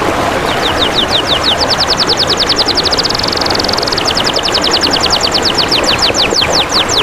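Songbird song on a masteran track: a fast series of falling whistled notes that speeds up into a steady buzzy trill about three seconds in, then goes on as falling notes. Underneath runs the steady rush of trickling water.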